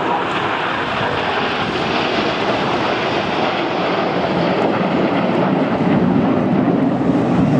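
Engine noise of a fixed-wing display aircraft flying past, a steady noisy rush that grows louder over the last couple of seconds.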